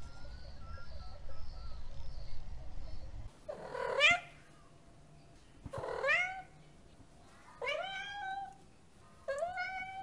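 A calico cat meowing four times, about two seconds apart, the first call the loudest. Before the first meow, a low steady rumble cuts off suddenly.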